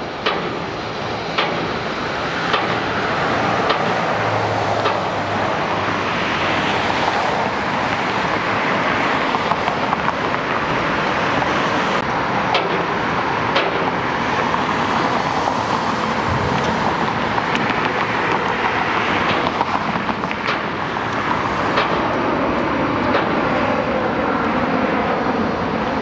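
Steady road traffic noise with a few sharp clicks or knocks scattered through it.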